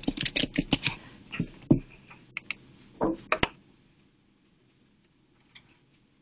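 Typing on a computer keyboard: a quick run of keystrokes that thins out after about a second and a half, then a few separate clicks around three seconds in, and near quiet from about four seconds on.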